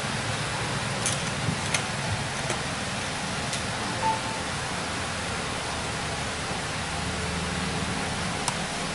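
Steady background hiss with a few faint, sharp clicks of small hardware being handled scattered through it.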